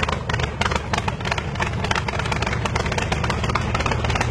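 V8 engine of a hot-rod tractor running steadily through short open header pipes: a loud rumble with a rapid, uneven crackle of exhaust pulses.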